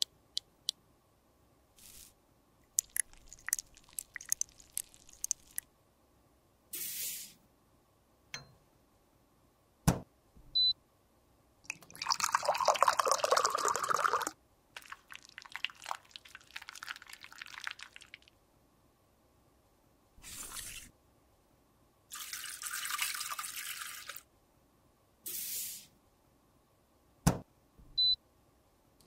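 Close-miked handling of cosmetics and tools: scattered sharp clicks and taps, several short hissing or scraping strokes, and a louder, fuller rustling stretch of about two seconds around twelve seconds in.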